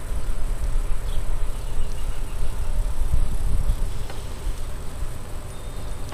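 Wind buffeting the microphone of a camera on a moving bicycle: a steady, uneven low rumble with road noise from the tyres.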